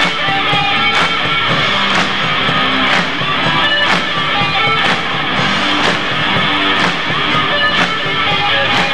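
Live band playing a rock song: electric guitar, drum kit and keyboards, with a drum hit about once a second.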